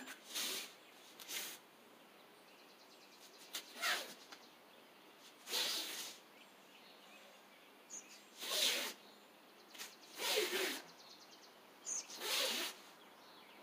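Short, forceful breaths pushed out with the techniques of a karate kata done at mid speed: about seven breathy bursts at irregular gaps of a second or two.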